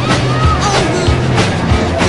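Music: a voice singing over held bass notes and drum hits.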